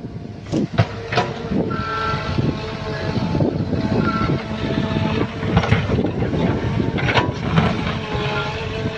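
Small crawler excavator's diesel engine running under digging load, with a hydraulic whine rising and falling as the arm and bucket move. The bucket knocks sharply against the soil and stones a few times, most clearly about a second in and again near the end.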